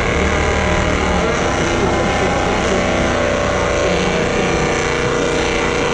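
Rally car engine running hard on the stage, steady with a held pitch that grows stronger in the second half, over a crowd murmur.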